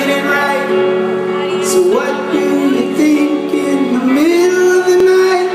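Rock band playing live on electric guitars, heard over the venue's sound system, with a sustained melody line that bends up and down in pitch over held chords.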